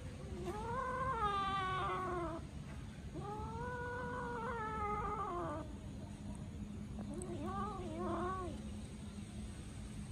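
A cat meowing three times: two long, drawn-out meows, then a shorter, wavering one near the end.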